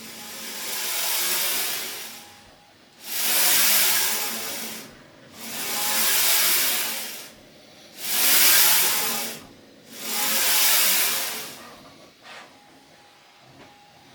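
CNC router gantry moved back and forth along its linear rails, the linear bearing blocks rolling with a smooth hiss that swells and fades five times, each pass about two seconds long. The gantry runs freely, without play, binding or high spots.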